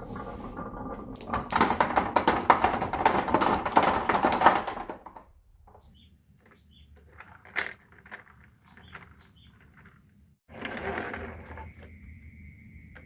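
Many marbles clattering rapidly down a wooden marble run for a few seconds, then thinning to scattered single clicks and taps. After a brief gap there is another rattle, and a steady high-pitched whine continues through the end.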